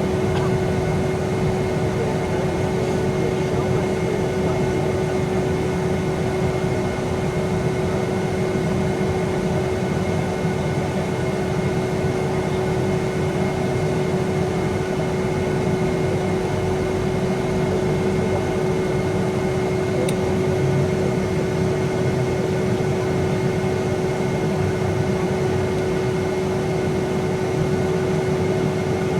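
Steady cabin noise of a Boeing 757-200 taxiing after landing: an even rush of air with a constant hum.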